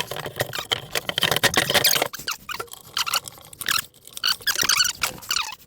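Rapid, irregular squeaking and clicking from hand work on a wall cabinet's fittings.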